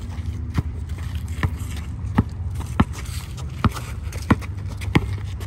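Basketball dribbled on a concrete court: about seven sharp bounces, roughly one every two-thirds of a second, over a low steady rumble.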